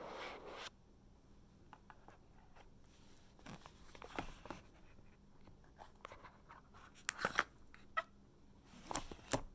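Cardboard Google Pixel 6 box being opened and handled by hand. A short sliding rustle as the lid comes off, then scattered light taps and rustles of fingers on the box and the phone inside, loudest about 7 and 9 seconds in.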